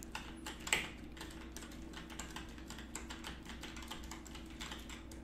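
Typing on a computer keyboard: a steady run of light key clicks, several a second.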